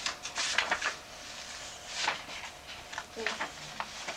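Paper pages of a children's book being turned and flipped: quick rustles and flicks, a cluster of them in the first second, a longer rustle about two seconds in, and a few small clicks near the end.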